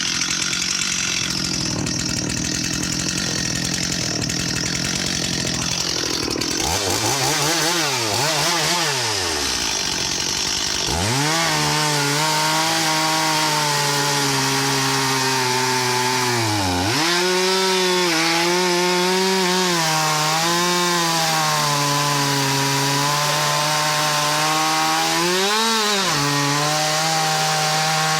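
Stihl MS 270 C 50cc two-stroke chainsaw with a freshly fitted chain. It is revved up and down a couple of times, then runs steadily at high throttle while cutting wood. Its pitch dips and recovers twice as the load on the chain changes.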